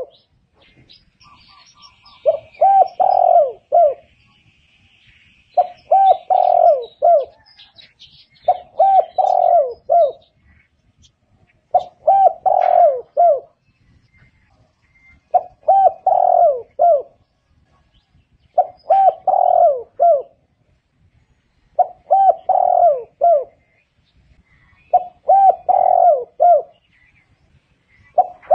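Spotted dove cooing: a phrase of three or four quick low coos, repeated about every three seconds, eight times. Faint higher chirps from small birds sound behind it in the first several seconds.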